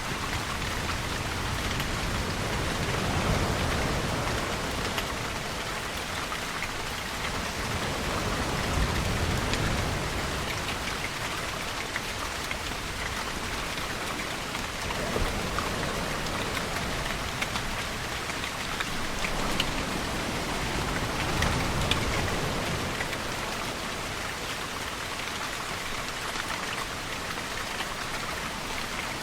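Steady rainfall pattering, mixed with ocean waves that rise and fade as a deeper rush about every six seconds.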